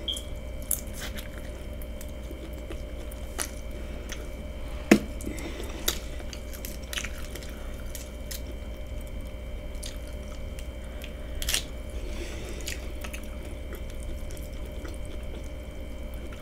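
Someone eating seafood: quiet chewing and scattered small wet clicks as shrimp are peeled by hand, with one sharper click about five seconds in. A faint steady hum runs underneath.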